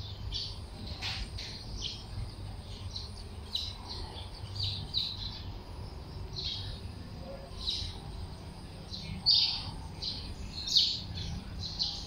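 Small birds chirping: short high calls at irregular intervals, two of them louder about nine and eleven seconds in, over a steady low background rumble.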